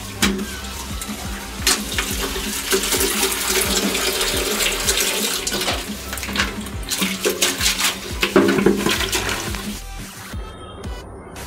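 Water splashing and sloshing as a plastic bucket is rinsed by hand and tipped out onto a concrete floor, with music underneath. The splashing thins out about ten seconds in.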